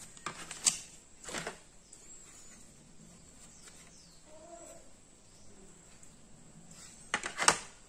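Handling noise of a 2.5-inch SSD and its paper packaging: a few rustles and taps near the start, then a clatter of knocks near the end as the drive and its wrapped packet are handled. A faint animal call sounds in the quiet middle.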